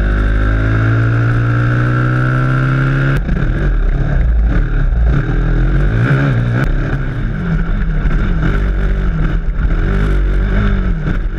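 Honda four-stroke dirt bike engine revving out, its pitch climbing steadily for about three seconds, then changing abruptly into uneven revs that rise and fall as the bike is ridden.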